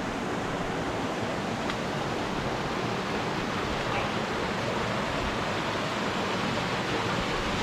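Steady rush of running water, an even hiss that holds without change.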